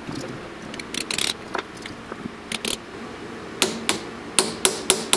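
Light hammer taps on a punch, closing up the metal case of a small geared stepper motor. There are a few scattered taps at first, then a quicker run of about four taps a second in the second half.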